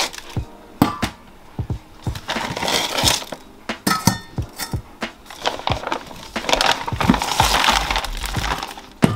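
Frozen whole mackerel knocking and clinking against stainless steel dog bowls as they are laid over frozen chicken feet, a run of sharp hard taps, with stretches of plastic bag rustling.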